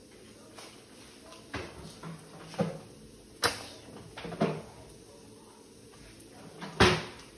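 Five or so separate knocks and clicks from objects being handled and set down on a kitchen counter, spaced unevenly, with the loudest near the end.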